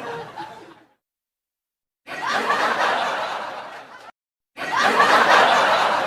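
Laughter sound-effect clips played one after another: a laugh fading out in the first second, then dead silence, then a second laugh that cuts off abruptly, and after a short gap a louder third laugh that keeps going.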